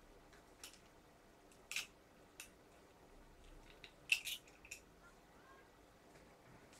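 Scattered sharp clicks and clacks of small airsoft rifle parts being handled during assembly, about five in all. The loudest is a quick double click about four seconds in.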